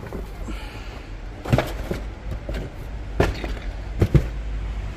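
A large cardboard Lego set box being pulled out of a paper shopping bag: paper rustling and several sharp knocks and scrapes of the box, over a low steady rumble.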